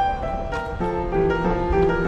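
Instrumental background music: a melody of held notes changing every half second or so.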